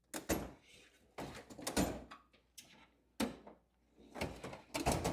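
Irregular knocks and clatters of tools and parts being handled and moved about on a workbench, about a dozen sharp strokes over five seconds.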